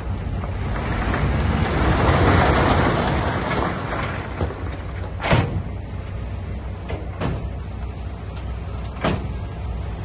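Heavy diesel earthmoving machinery working: a steady low engine rumble with a louder rushing swell about two seconds in, then three sharp metal clanks roughly two seconds apart.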